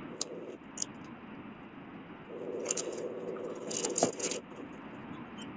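Plastic-sealed packets of herbal powder crinkling and rattling as they are handled and shuffled in a cardboard box, with short crisp crackles. A faint steady buzz runs under it for about two seconds in the middle.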